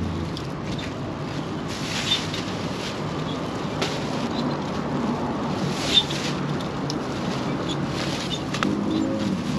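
Steady outdoor street noise, a continuous rushing with a few sharp clicks and taps.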